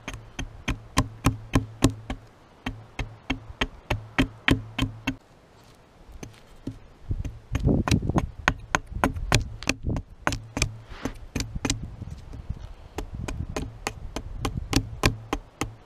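Axe making quick downward chops along the edge of a wooden throw stick braced on a log, carving its rounded bevel: a run of sharp wooden knocks about three a second, with a short pause about five seconds in before the chopping resumes.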